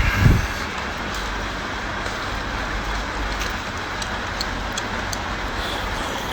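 Steady background rumble and hiss, with two low thumps at the start and faint scattered clicks of someone chewing chewy conch head meat.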